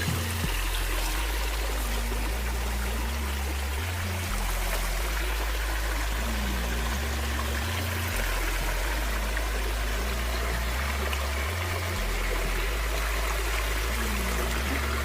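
Steady rushing of running water, with background music carrying a deep bass line that changes note about once a second.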